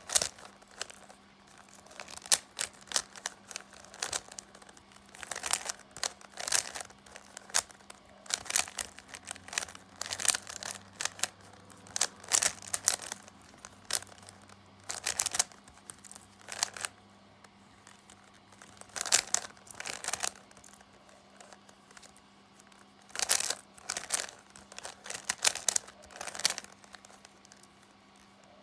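Rubik's Cube being solved by hand: the plastic layers clicking and scraping as they are turned, in quick runs of turns with short pauses between them.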